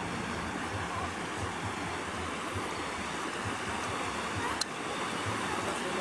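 A fast, brown river rushing over a shallow stony bed: a steady rush of water. A single faint click about two-thirds of the way through.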